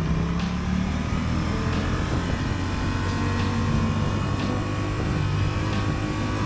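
2023 Honda Transalp's 755 cc parallel-twin engine heard from the rider's seat as the bike pulls away and speeds up, with wind rush over it. The engine note drops about a second in, then runs steady.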